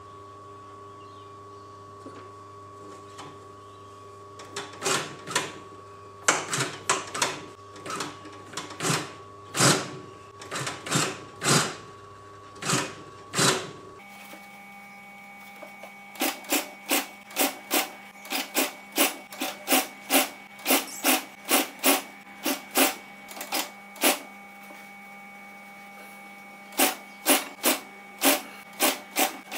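Industrial sewing machine stitching upholstery material slowly: a sharp clack about twice a second, in short runs with pauses, over a steady hum.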